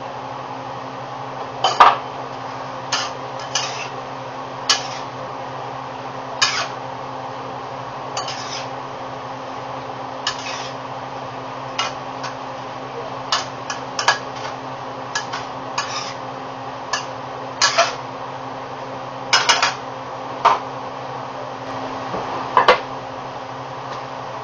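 A cooking utensil knocking and scraping against a steel wok as sausage and peppers are stirred, in irregular clanks every second or so, the loudest about two seconds in. A steady low hum runs underneath.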